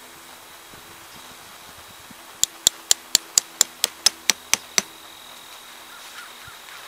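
A tent stake being tapped into the ground with eleven quick, even knocks, about four a second.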